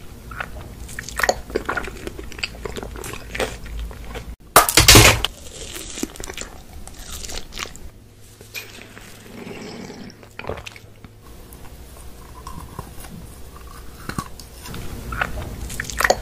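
Close-up crunching and chewing of glossy candies: a run of sharp bites and crackles, with the loudest crunch about five seconds in.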